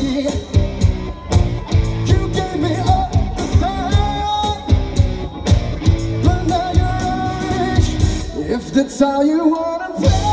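Live rock band playing: a male singer's voice over electric guitars, bass and drums. About eight and a half seconds in, the drums and bass drop out, leaving the voice and guitar, and the full band comes back in near the end.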